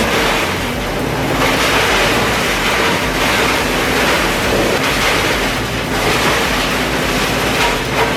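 Large wood chipper running: a steady engine drone under a loud, continuous rushing noise.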